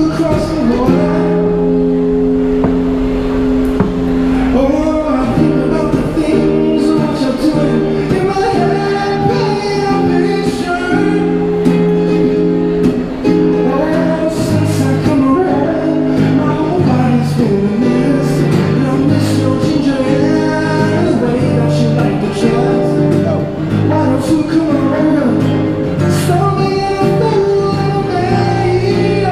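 Man singing a song into a microphone, accompanied by amplified acoustic guitar.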